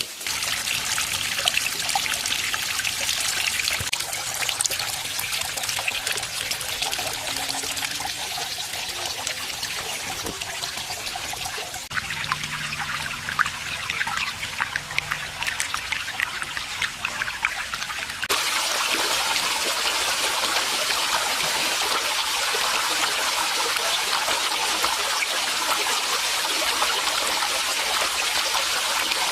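Water trickling and splashing steadily from a small waterfall into a pond. The sound shifts suddenly twice, about twelve seconds in and again about eighteen seconds in, the second time becoming brighter and fuller.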